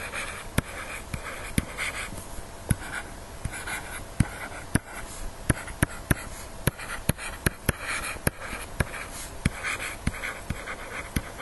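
A stylus writing on a pen tablet: sharp, irregular taps each time the pen touches down, a few a second, with short scratchy strokes between them.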